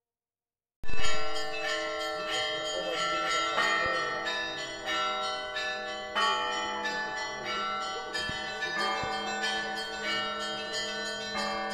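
Orthodox church bells ringing: several bells of different pitch struck in overlapping strokes, each left to ring on. It starts suddenly with a loud stroke about a second in.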